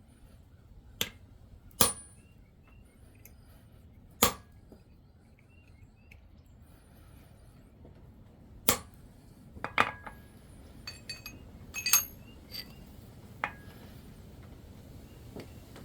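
Single sharp metal-on-metal hammer strikes a second or two apart, then about halfway through a quicker cluster of lighter clinks and taps of small tools on metal.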